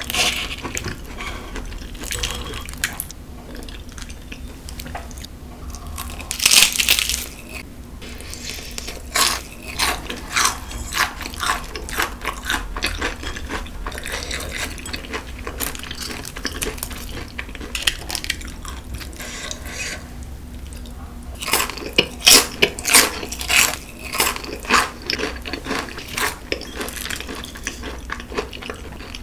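Close-miked crunching and chewing of crispy fried chicken, the crackling bites coming in bursts, with light clinks of metal chopsticks against the steel dipping bowl.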